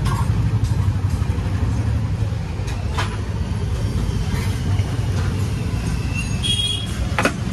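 Steady low rumble of vehicle engines in street traffic, with a couple of sharp clicks, one about three seconds in and one near the end.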